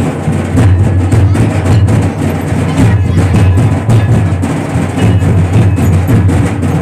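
Loud drum-led music with a steady beat.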